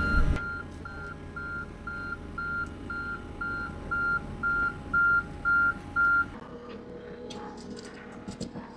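Skid steer's reversing alarm beeping steadily about twice a second, with the machine's engine running underneath and loudest in the first half second. Both stop abruptly about six seconds in, leaving a few faint clicks.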